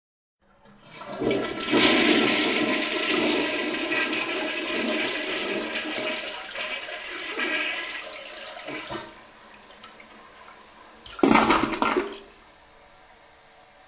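Toilet flushing: a loud rushing swirl that starts about half a second in and fades over several seconds. A second short gush comes about eleven seconds in, and then a low steady hiss of the tank refilling.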